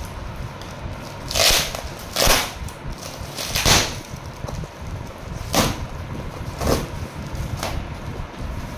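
A cardboard parcel being torn open by hand: about six short tearing and rustling rasps of cardboard, packing tape and plastic wrapping. The first three are the loudest.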